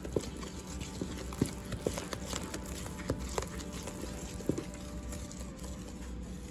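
Wooden spoon stirring thick flour batter in a plastic mixing bowl, with uneven knocks as the spoon hits the side of the bowl.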